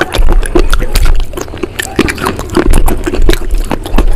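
Close-miked wet, squishy clicking and crackling as a slate bar is dipped and dragged through thick creamy white paste in a bowl and fingers stir it, a dense run of small irregular clicks over a low rumble.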